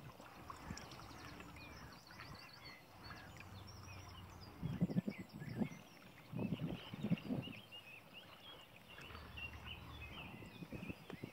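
Wind buffeting the microphone in gusts, loudest twice a little before and after the middle, over steady faint twittering of birds.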